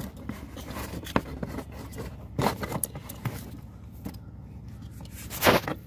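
Small plastic clicks and scrapes as fingers handle a car's ambient temperature sensor and its plastic bracket and wiring connector, with a louder scrape near the end.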